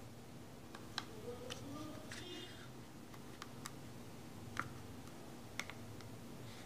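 Scattered sharp plastic clicks from a smartphone's back cover being handled and pried at the edge with a fingernail, the loudest about four and a half seconds in, with a short creak a little after two seconds in.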